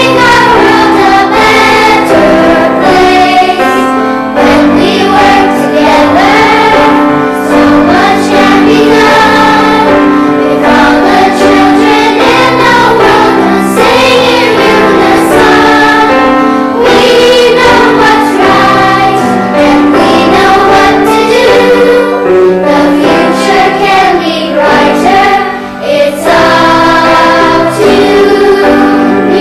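Music with a choir singing: many voices holding and moving between sustained sung notes over a steady low accompaniment.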